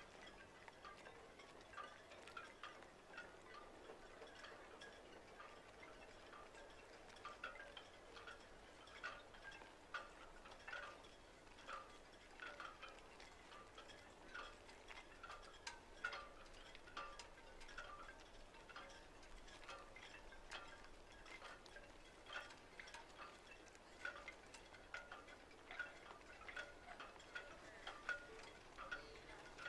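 Faint chime-like notes tinkling in a quick, steady rhythm, about two a second, with no speech.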